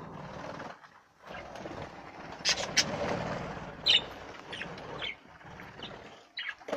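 English (exhibition) budgerigars chattering in a breeding shed, with a few sharp high chirps in the middle, over a steady noisy background. The sound drops out briefly about a second in and again near the end.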